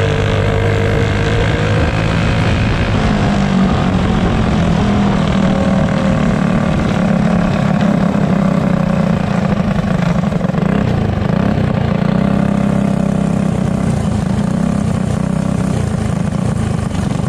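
Small single-cylinder four-stroke clone engine of a racing go-kart, heard close up from the kart itself, running steadily as the kart slows down after the finish.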